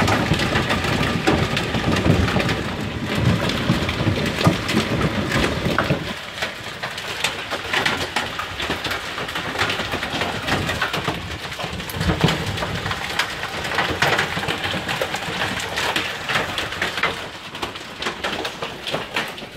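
Hail pelting down: a dense clatter of hailstones striking hard surfaces. It is heaviest for the first six seconds or so, then eases a little.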